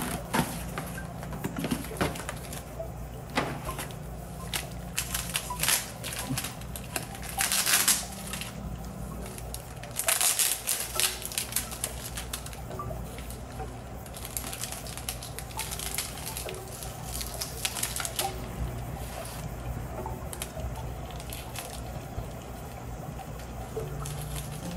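Cardboard shipping box being pulled open, then the plastic and paper wrapping around a potted plant crinkling and rustling as it is unwrapped, in irregular crackly bursts. A low steady hum sits underneath.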